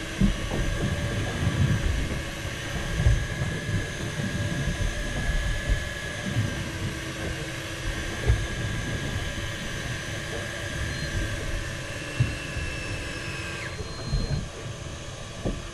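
Fishing boat's engine running steadily with a thin whine, while wind gusts buffet the microphone; the whine changes pitch abruptly near the end.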